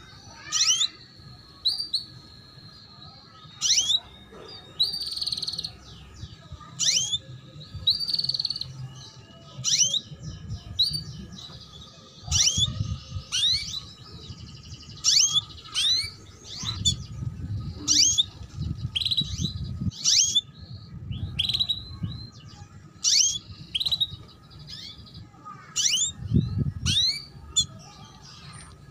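Female domestic canary calling 'cuit cuit': short, sharply rising chirps repeated about once a second, sometimes in pairs, with a few longer held notes between them.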